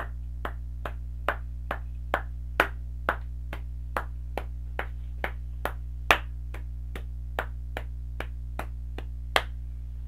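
Hand claps in a steady, even rhythm, a little over two a second, a few landing louder than the rest: the pairs of eighth notes of a four-four rhythm-reading exercise clapped out.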